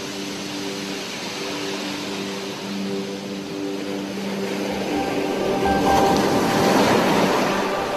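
Ambient background music of held, sustained notes. A rushing whoosh swells over it from about five seconds in, peaks around seven seconds, and fades.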